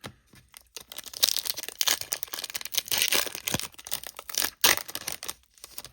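Foil trading-card pack being torn open, its wrapper crinkling and crackling for several seconds.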